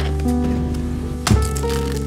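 Background music track: sustained bass and chord notes, with a new chord and beat coming in just over a second in.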